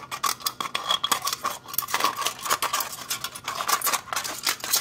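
Scissors cutting down a thin aluminium beer can: an irregular run of sharp snips and crinkles of the metal.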